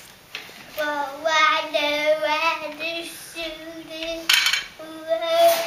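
A toddler singing a song in long, held notes that break off and start again several times. There are two short rustling noises near the end.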